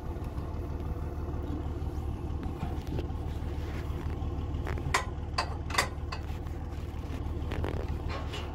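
A vehicle engine idles steadily while a ratchet strap is tightened over the trailer load, giving three sharp clicks about five seconds in and a few more near the end.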